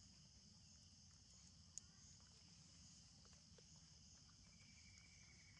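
Near silence outdoors with a steady high-pitched chirring of insects, plus a single sharp click about two seconds in and a few faint ticks, likely from leaf litter or twigs.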